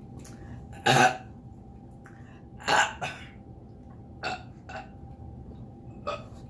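A woman burping loudly after drinking carbonated lemonade: a big burp about a second in, another near three seconds, then three shorter, softer burps.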